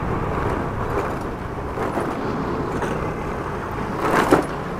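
Steady ride noise from a Honda Activa scooter on the move: a rush of wind and road noise over the engine. A brief louder burst of noise comes about four seconds in.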